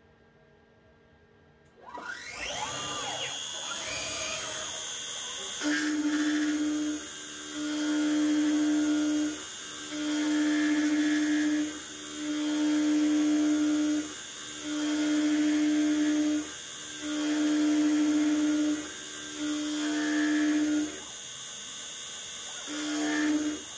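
Live-tooling spindle on a DIY CNC lathe spinning up about two seconds in, then milling the end of a metal bar. A steady high whine runs under a cutting tone that swells and drops in about eight passes roughly two seconds apart.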